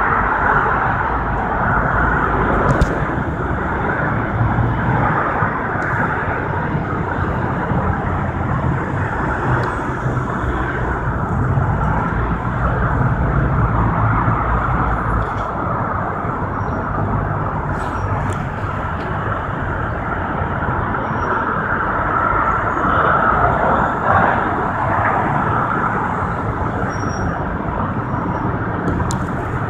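Dense multi-lane freeway traffic: many cars' tyres and engines blending into one continuous, steady rush of noise.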